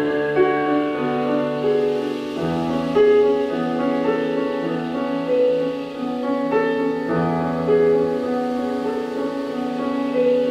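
Slow live instrumental music: piano chords over long held tones, with the chord changing a couple of times.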